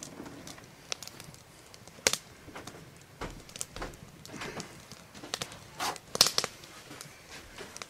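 Scattered light clicks, knocks and rustles, with sharper ones about two seconds in and again around six seconds in.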